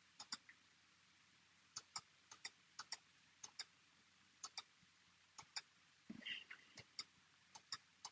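Faint computer mouse clicks, mostly in quick press-and-release pairs, about nine of them at uneven intervals: clicking a debugger's step button to advance through code one instruction at a time.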